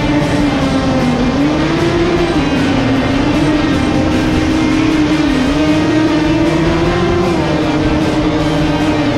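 Off-road race truck's engine running hard, its pitch rising and falling as the throttle comes on and off, under background rock music with guitar.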